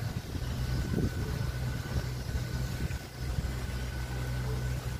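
An engine idling steadily with a low hum, under a light wash of noise.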